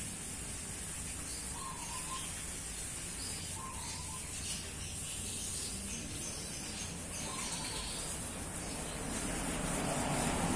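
Steady background hiss with a low hum, broken by three faint short high chirps. A low rumble swells near the end.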